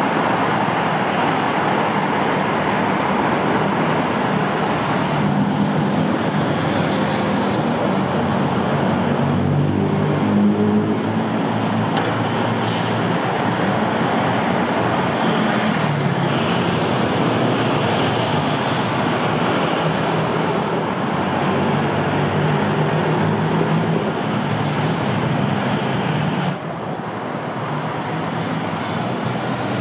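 Steady city street traffic noise, with the hum of vehicle engines passing now and then. The level drops a little near the end.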